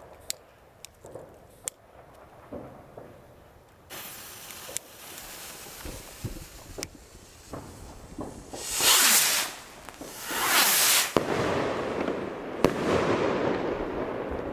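Two Funke Silberblitz salute rockets being fired: a lit fuse hisses from about four seconds in, then two loud whooshes of the rockets taking off a second or so apart, and near the end a sharp bang with a rumbling echo.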